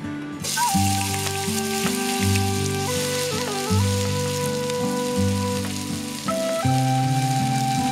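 Drained American long-grain white rice hits very hot oil about half a second in and sizzles, then keeps frying with a steady hiss. Soft instrumental music plays over it.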